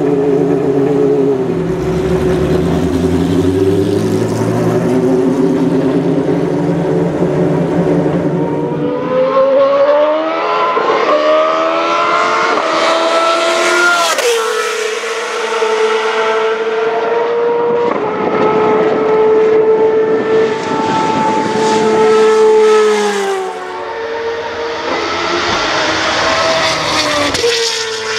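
Dallara GP2/05 race car's Mecachrome V8 engine running at low revs, then accelerating hard with quick upshifts, holding high revs, easing off about two-thirds of the way through and pulling up the revs again near the end.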